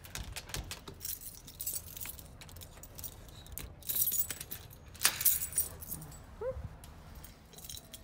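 A bunch of keys jangling, with sharp metallic clicks as a key is worked into the cylinder of a lever-handle door lock that is not that key's own lock.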